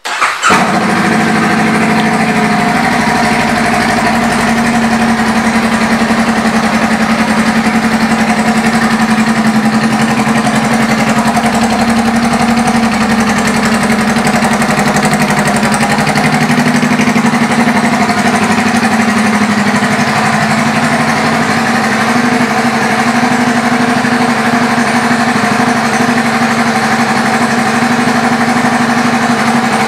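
2019 Honda Rebel 500's 471 cc parallel-twin engine, fitted with an aftermarket exhaust, idling steadily. It cuts in suddenly at the start with a brief flare in level.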